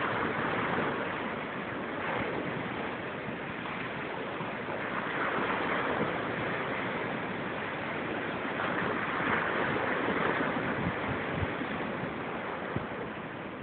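Ocean surf washing ashore, a steady rush that swells every few seconds as waves break.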